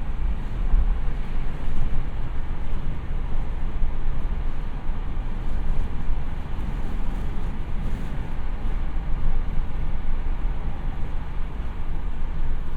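Car running with a steady low rumble of engine and road noise, even throughout with no revving or sudden events.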